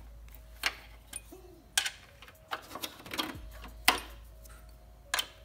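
Sharp metallic clicks and taps from a small hand tool working a bolt in a car's engine bay. The clicks come irregularly, with a quick cluster near the middle.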